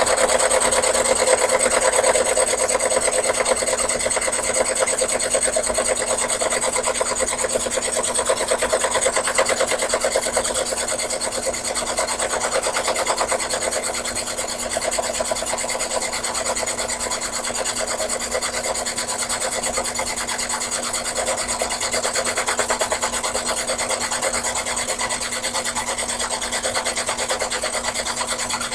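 Sherline mini lathe running under power feed as the cutting tool takes a pass along work turned between centers. It makes a steady whir with a fast, fine rasping rhythm, a little louder in the first few seconds.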